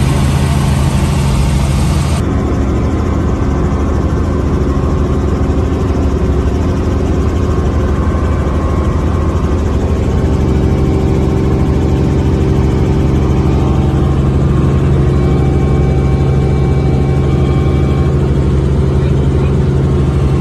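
Helicopter engine and rotor noise heard from inside the cabin in flight: a loud, steady hum that does not change in pitch.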